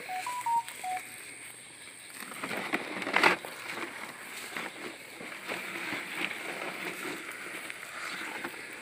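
Footsteps and rustling through wet grass along a muddy ditch bank, with a loud crunch about three seconds in. A few short pitched notes sound in the first second.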